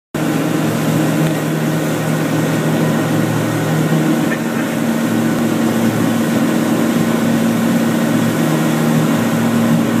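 Sanger V237 wakeboat's inboard engine running steadily under load at wakesurfing speed, with a constant rush of wind and water over it.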